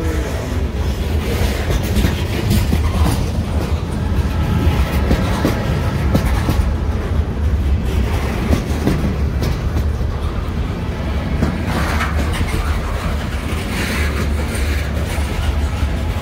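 Freight train cars rolling past at close range: a steady low rumble of steel wheels on rail, with short clicks as the wheels cross rail joints.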